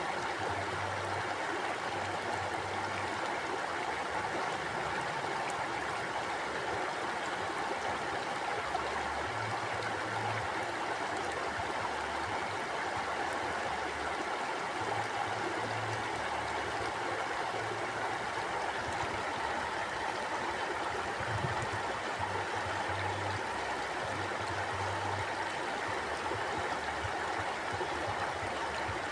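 River water flowing: a steady, even rush of running water.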